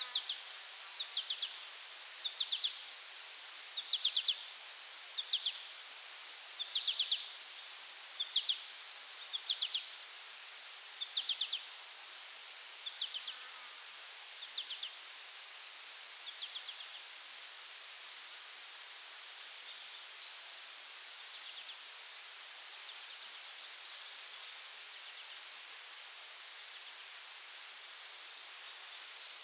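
Forest insect chorus: a steady high-pitched drone with faint fast-pulsing chirps underneath. Over the first half, louder short chirps repeat about every second and a half, then fade out a little past halfway.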